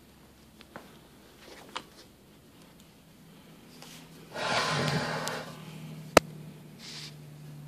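Quiet handling of a metal vessel with a few faint ticks, then a short noisy breath close to the microphone about four seconds in. A little after six seconds a single sharp click, the loudest sound here, comes as a flashlight is switched on, followed by a faint low hum.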